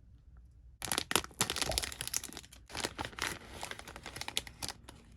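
A kids' meal toy package being torn open and crinkled by hand, with dense irregular crackling starting about a second in.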